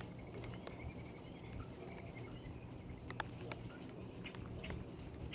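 Outdoor ambience: faint songbird chirping in the background over a steady low rumble, with a handful of scattered sharp ticks.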